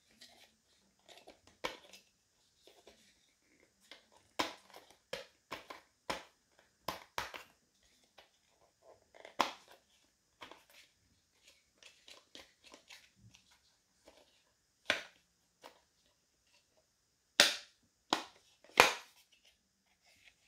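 Handling noise from a 12 V cordless drill-driver set: irregular clicks, knocks and snaps of hard parts, with the three loudest snaps coming close together near the end.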